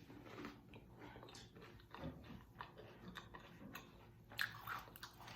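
Close-up chewing of sweet and sour chicken: crunches and bites at an uneven pace, loudest a little past four seconds in.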